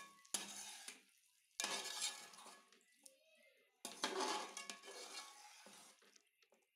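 A spatula stirring and scraping chicken pieces and thick sauce around a metal cooking pot, in three bouts, each starting with a sharp scrape and fading off.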